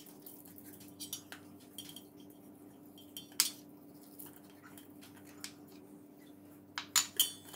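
Scattered light taps and clinks on a stainless steel bowl as a whole fish is handled and rubbed with salt in it, with a louder clink about three and a half seconds in and two ringing clinks around seven seconds.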